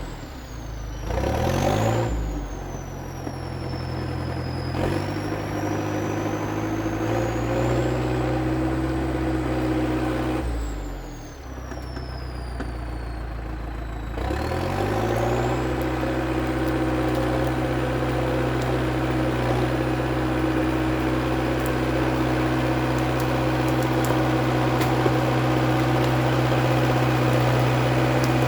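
International Harvester TD8E crawler bulldozer's diesel engine running while working. Its engine speed sags and recovers twice, near the start and again around halfway, with a thin high whine that glides up and down.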